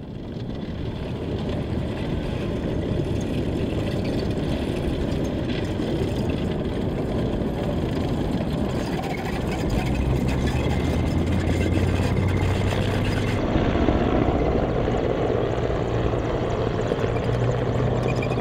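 Armoured military vehicle engines running steadily with a rushing, noisy rumble. A deeper steady engine hum comes in about ten seconds in.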